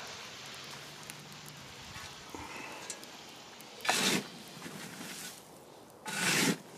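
Water from a garden hose hissing as it hits and soaks into a wheelbarrow load of still-warm biochar, fading over the first few seconds. Two short, loud rushing bursts come about four and six seconds in.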